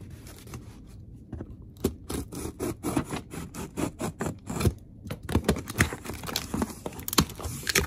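Cardboard shipping box being opened by hand: tape scratching and tearing and cardboard scraping and crackling in many short strokes, sparse at first and busier from about two seconds in.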